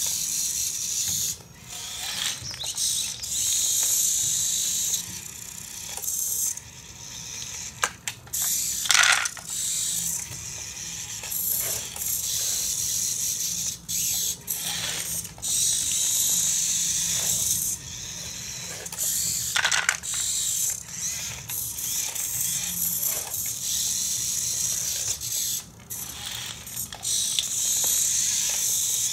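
Small electric drive and loader motors of a Siku Control radio-controlled model tractor whining through their plastic gearing in stretches of a few seconds as it drives and works its front loader. Now and then there is a short clatter as the loader bucket works the pile of model stones.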